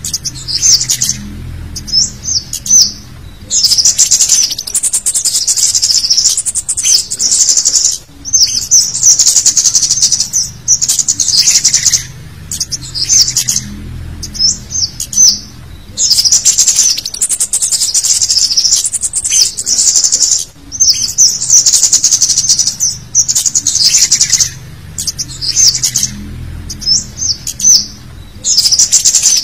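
Bird-lure recording of a male kemade (scarlet-headed flowerpecker) calling: dense bursts of rapid, high-pitched 'cit' chirps a second or two long, separated by short gaps and a few thin squeaky notes. The sequence loops about every twelve seconds.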